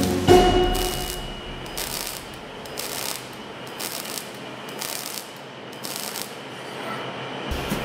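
Robotic MIG welding arc crackling and sputtering unevenly as the torch lays a bead on steel. The tail of a music track dies away about a second in.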